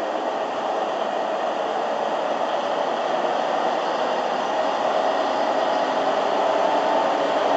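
Deutsche Bahn class 218 diesel-hydraulic locomotive's engine running steadily as it sets off, growing a little louder toward the end.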